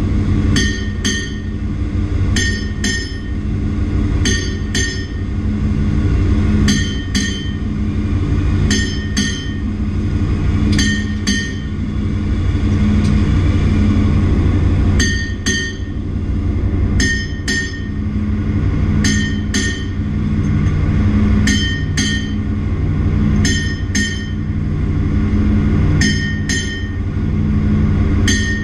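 Ship's engine-room machinery running, heard from inside a large marine engine: a steady low drone and hum, with sharp metallic clicks in pairs about every two seconds that pause briefly about halfway through.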